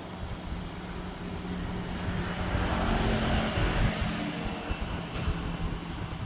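A motor vehicle passing by: a noisy rush that builds to its loudest about three to four seconds in, then eases off.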